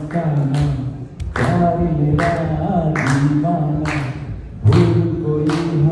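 Several voices singing together, holding long notes, over a sharp beat a little more than once a second.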